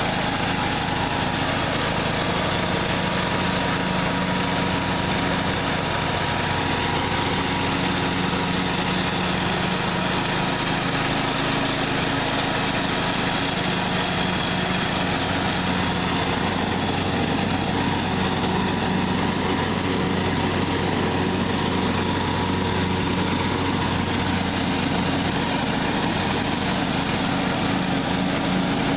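John Deere LA115 riding lawn mower's 19.5 hp Briggs & Stratton engine running steadily while mowing, an even drone with no change in speed.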